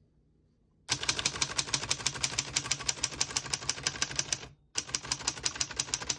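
Typing on a 1927 Underwood four-bank portable typewriter: a fast, even run of key strikes starting about a second in, with a short break about four and a half seconds in before it carries on. The keys are typing cleanly, none skipping or sticking.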